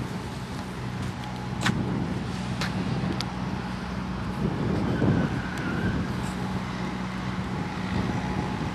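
Diesel engine of a yellow Optare Versa single-deck bus running with a steady drone as the bus pulls round and drives toward the camera. A few sharp clicks come in the first few seconds.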